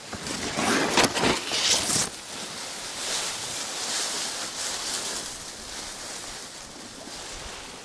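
Water splashing and wind noise, with a few loud noisy bursts in the first two seconds, then a steady hiss.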